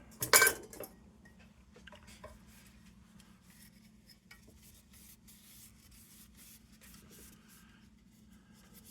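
Small metal lantern parts being handled: one sharp clink about a third of a second in, then light scattered ticks and rubbing as the pieces are wiped and moved about, over a faint steady hum.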